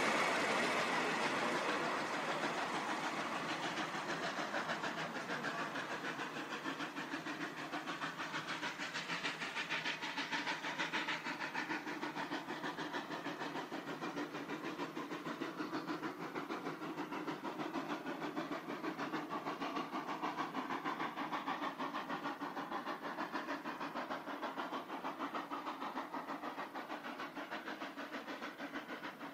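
South African Railways Class 19D steam locomotive working hard up a grade, its exhaust beats pulsing in a steady rhythm. The coaches' wheels run past loudly at first, then the train pulls away and the chuffing carries on, fainter.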